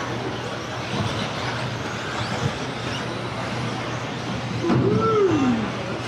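Electric RC buggies running laps on a carpet track: a steady din of motors and tyres. About five seconds in, one motor's whine swells, rising then falling in pitch.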